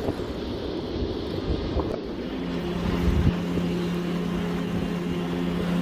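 Steady low rumbling noise of outdoor traffic or wind, with sustained music chords coming in about two seconds in.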